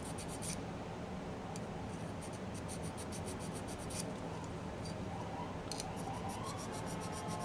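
Fine hand file rasping in short strokes on a white metal model locomotive frame, smoothing the finish after coarse filing. Runs of quick strokes come near the start and about three-quarters through, with single strokes between.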